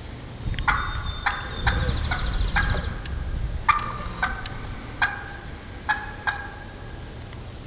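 Wild turkey hen yelping excitedly: two runs of short, sharp yelps, about two a second, with a brief pause between the runs.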